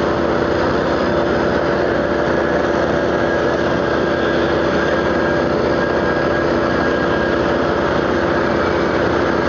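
Steady, loud drone of running drilling-rig machinery, with a constant hum that holds level throughout.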